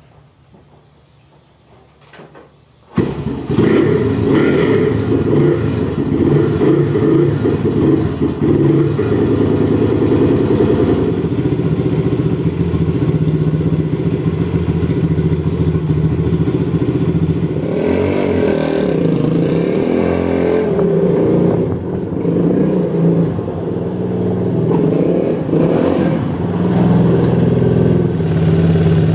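Honda ATC200X three-wheeler's air-cooled four-stroke single engine running cold, just after a first-kick start. It comes in suddenly about three seconds in after a few quiet seconds, then runs steadily with a brief rise and fall in revs partway through.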